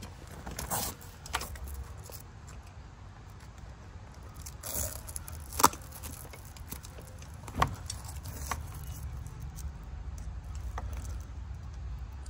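Handling noise as a fabric frame bag is strapped to an e-bike's top tube: light rustling and scattered small clicks, a short rasp of hook-and-loop strap a little before halfway, and two sharper clicks near the middle, over a steady low rumble.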